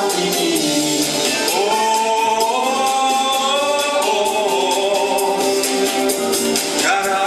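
A man singing long, sliding held notes into a microphone over a pop backing track with a steady drum beat.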